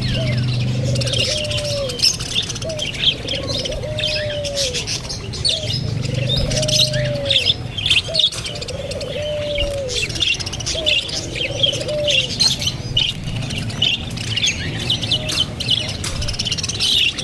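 Many birds chirping rapidly and continuously, with a lower call that rises and then falls, repeated about every one and a half seconds.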